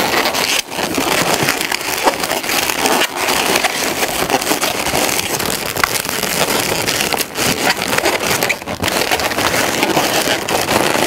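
Inflated latex modelling balloons (a black 160 being worked into a pinch twist on a gray balloon head) rubbing and crackling against each other as they are twisted and pushed into place, a continuous dense crinkly rub.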